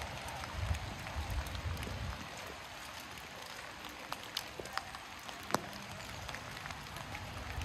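Steady rain falling on the street: a continuous hiss with scattered sharp drip ticks, and a low rumble in the first two seconds.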